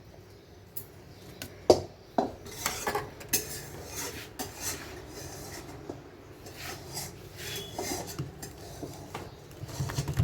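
Metal utensils clinking and knocking against pots and dishes in an irregular run, the sharpest knock about a second and a half in.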